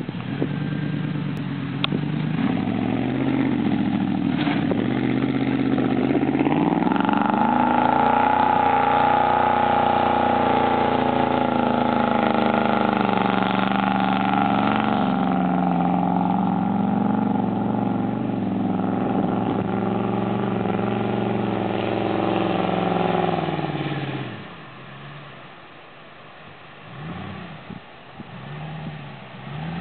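2001 Ford F-150 4x4's engine revving hard under load in loose sand, its pitch rising and falling with the throttle. About 24 seconds in it drops away to quieter, short throttle blips.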